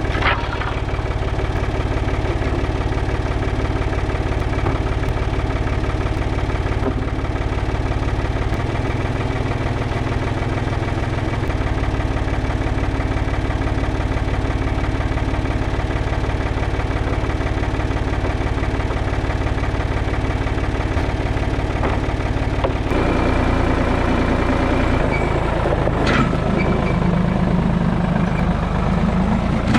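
An engine running steadily at a constant speed; its note changes about 23 seconds in.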